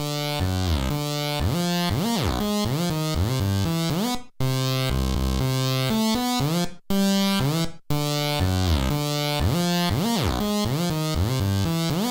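ymVST chip-style software synthesizer, emulating 1980s sound-chip tones, playing a repeating electronic phrase. Buzzy notes glide up and down in pitch over a low bass note. The phrase breaks off briefly about four seconds in, and again twice near seven and eight seconds.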